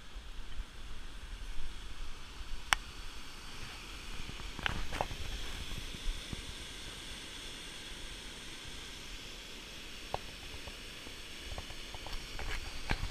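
Rushing water of a mountain waterfall, a steady hiss that is strongest when the falls are in view. There is a low rumble underneath and a few sharp clicks.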